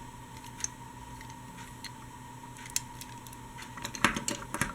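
Light clicks and clinks of small die-cast metal toy trains being handled, a few scattered at first and then a quick cluster about four seconds in, over a faint steady hum.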